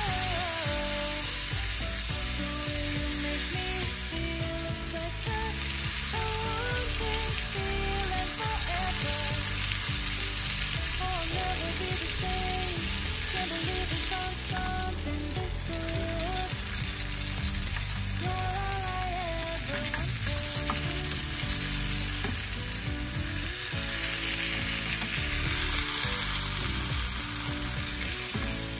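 Breaded chicken fillets sizzling and frying in oil in a nonstick frying pan, while soy sauce and honey are spooned in and cook down into a sticky glaze. Background music plays over the sizzling throughout.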